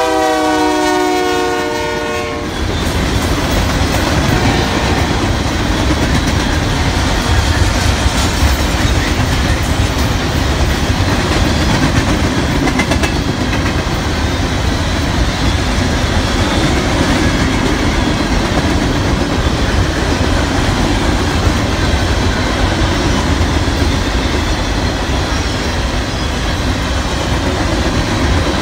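Canadian Pacific freight locomotive's horn sounding as the engine passes close by, cutting off about two and a half seconds in. After it comes the steady rolling noise of a long train of covered hopper cars passing, steel wheels on rail.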